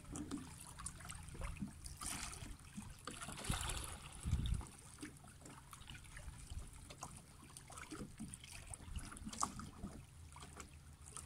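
Faint small waves lapping and trickling on a rocky shoreline, with a low wind rumble. The water hiss swells briefly about two and three and a half seconds in.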